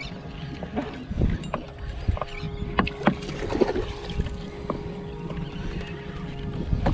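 A hooked jack thrashing at the surface beside a boat: irregular splashes and knocks, with a faint steady hum through the middle.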